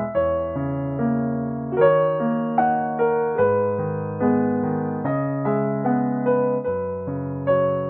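Background music: a gentle piano melody, one note or chord struck about every 0.8 seconds and left to fade.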